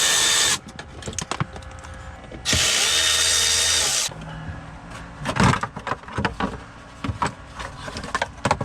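Adhesive tape pulled off a roll in two long pulls of about a second and a half each, then a series of clicks and light knocks as it is handled and pressed on.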